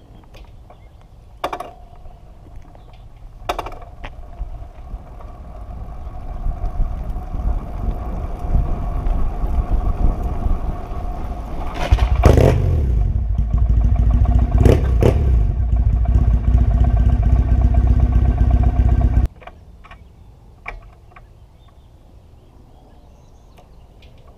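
Fuel-injected 2010 Triumph Bonneville parallel twin being bump-started: the bike coasts downhill in first gear with the clutch held in, two clunks in the first few seconds and wind and rolling noise growing steadily louder. About halfway through the clutch is let out and the engine catches and runs with a loud low rumble, which cuts off suddenly some seven seconds later, leaving quiet rolling with a few light clicks.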